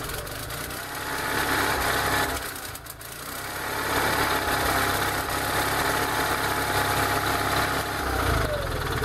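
Air-cooled Onan 6 kW generator set running with a steady engine hum. It sags briefly about three seconds in and picks back up. Near the end its pitch falls as it is switched off and winds down.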